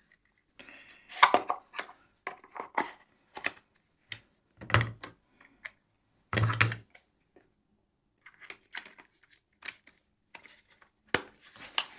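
Handling sounds of a cordless angle grinder kit being packed into its plastic carry case: scattered clicks and knocks as the pieces are set into place, with two heavier thuds about five and six and a half seconds in.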